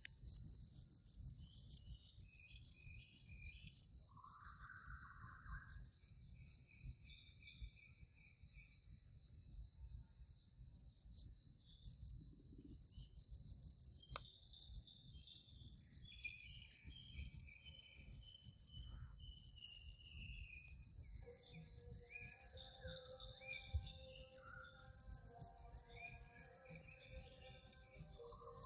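Insects chirping in a fast, even, high-pitched pulse; the chirping drops out for several seconds about a quarter of the way in, then starts again and carries on. Short bird calls sound in the background, more of them in the latter half.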